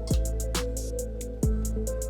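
Background music with a steady beat: sustained synth-like notes over kick drum hits and light hi-hats.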